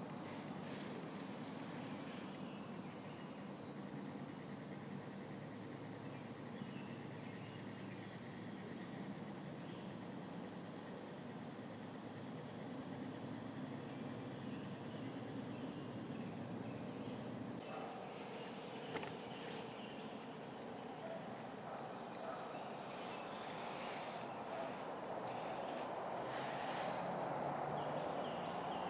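Steady high-pitched drone of an insect chorus, with scattered short high chirps over it. A broader hiss grows louder over the last ten seconds.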